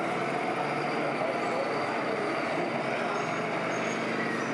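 Scale RC trucks running with their sound modules playing diesel truck engine noise, steady, with a low engine tone settling in about three seconds in, over a murmur of voices.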